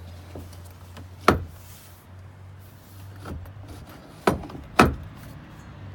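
Three sharp knocks, about a second in and then twice in quick succession near the end, with a weaker one between, over a steady low hum: hard parts of a boat's deck fittings being handled or knocked.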